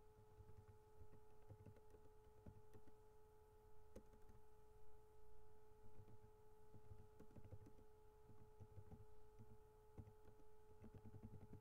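Near silence with a faint, steady electrical tone and its overtones picked up through the laptop's microphone input, over faint low rumble and a few small ticks.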